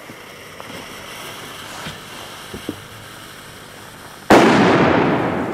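A firecracker (Böller) going off about four seconds in: one sudden loud bang with a long fading tail, after a few faint clicks.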